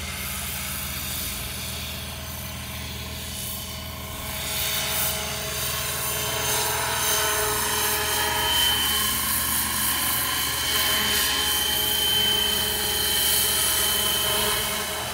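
Radio-controlled 600-size MD500E scale helicopter in flight: steady rotor beat with a high, steady whine from the drive. It grows louder from about four seconds in as it flies close by.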